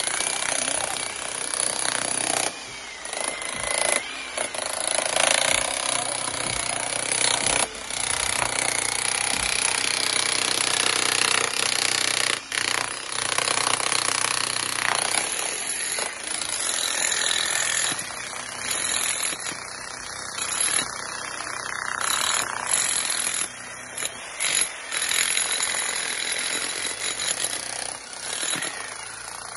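Makita HM1214C electric demolition hammer chiselling into concrete around rebar. It hammers continuously, with several brief stops and restarts.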